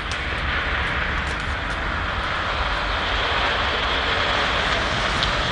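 A car driving up the street: a steady rush of engine and tyre noise that swells a little in the first second and then holds.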